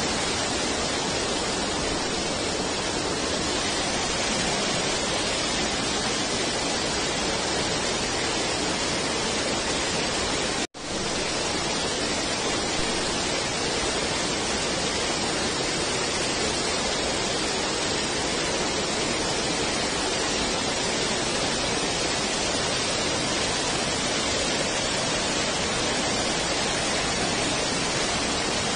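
Waterfall in flood, heavy water pouring down in a steady rush, broken by a momentary dropout to silence about ten seconds in.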